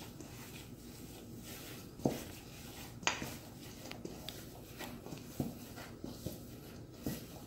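A gloved hand mixing ground beef and blue cheese in a stainless steel mixing bowl: quiet handling sounds, with a few light knocks against the bowl.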